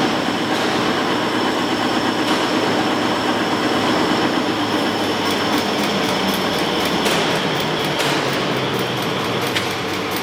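Steady mechanical running noise from a machine, with a fast, even ticking joining in about halfway through.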